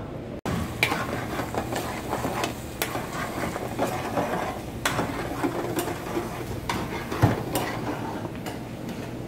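Commercial kitchen clatter: metal pans, bowls and utensils clinking and knocking at irregular moments, one sharper knock a little after seven seconds in, over a steady low hum and noise.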